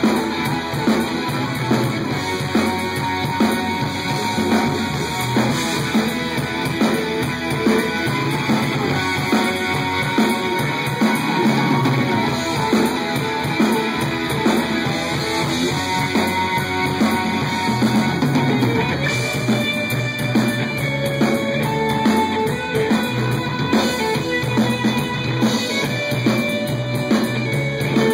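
Live progressive rock band playing an instrumental passage: electric guitar over bass, drum kit and keyboards.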